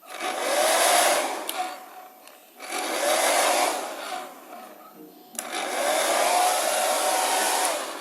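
Hair dryer switched on and off three times, each burst of blowing lasting about two seconds, with the motor's whine rising as it spins up at each start.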